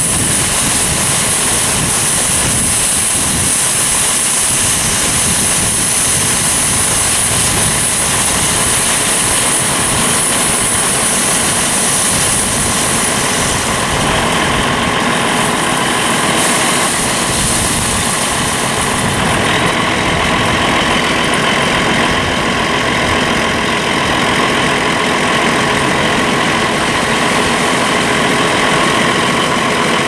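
John Deere 7420 tractor's engine running steadily under load while its high-dump wagon tips ear corn into a gravity box, the cobs pouring in. A steady higher whine joins about two-thirds of the way through.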